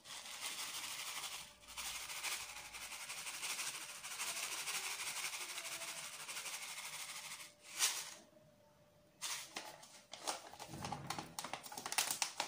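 A dry ingredient pours from a paper packet onto cake batter as a steady hissing stream for about seven seconds. After a short pause the paper packet crinkles and crackles as it is folded shut.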